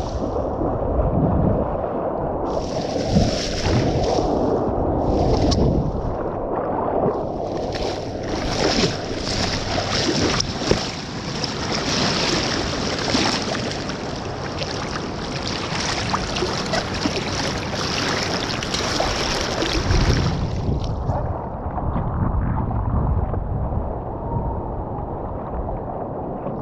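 Loud, steady rushing noise of wind buffeting the microphone, with a high hiss that comes and goes and drops away about twenty seconds in.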